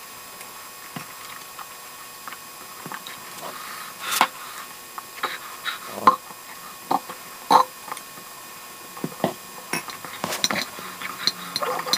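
Close-miked eating sounds: scattered short wet mouth clicks and smacks from sipping through a straw and chewing, roughly one a second, busier near the end.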